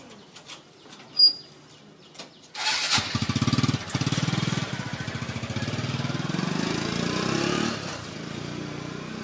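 A small engine starts suddenly about two and a half seconds in and runs with a rapid putter, easing off near the end. Before it, a few faint clicks and one brief, sharp high squeak about a second in.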